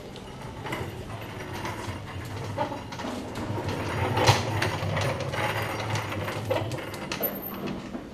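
Janitorial cart rolling across a hard floor, its wheels rumbling and the cart rattling with many small clicks. It is loudest in the middle and dies down near the end.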